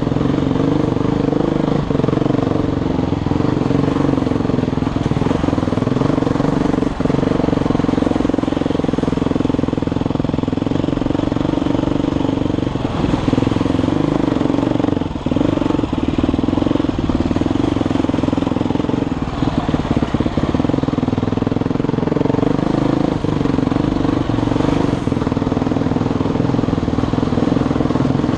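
Dirt bike engine running at fairly steady revs while being ridden along a rough, muddy trail.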